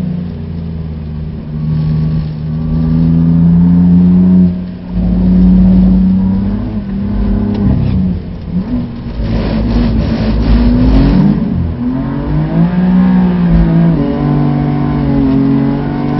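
BMW F80 M3's twin-turbo straight-six heard from inside the cabin, pulling through the gears. Its note holds, drops and swings up and down with throttle and gear changes, with a harsher, noisier stretch about halfway through.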